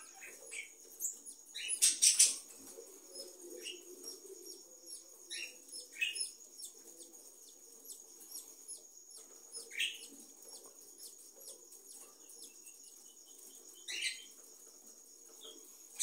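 Newborn parrot chick giving short, high cheeps at irregular intervals while being hand-fed, the loudest about two seconds in, with soft handling rustles between them.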